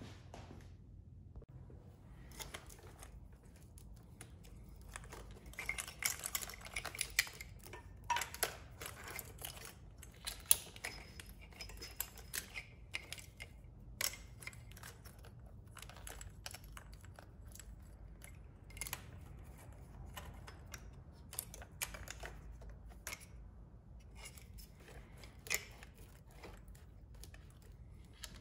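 Hands working a motorcycle's wiring and fastening a zip tie around the wires: irregular small clicks, ticks and rustles of plastic and wire, coming in clusters, over a faint low hum.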